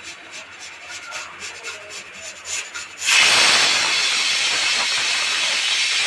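Stovetop pressure cooker whistling: after about three seconds of faint sputtering, steam suddenly bursts out past the weight with a loud, steady hiss. This first whistle signals that the cooker has reached full pressure and the curry is done.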